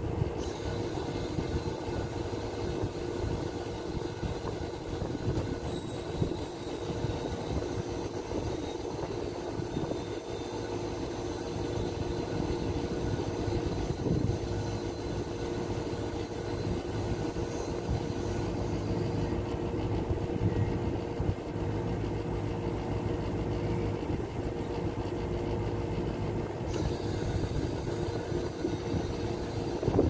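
Toshiba split air conditioner's outdoor unit running steadily while it takes an R22 refill: a constant compressor and fan hum with a couple of held tones.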